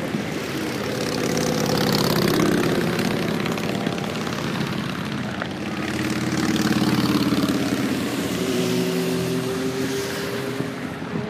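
Large touring motorcycles, Harley-Davidson cruisers, riding past one after another. Each engine swells as the bike nears and fades as it goes by, with the loudest passes about two seconds in and again about seven seconds in.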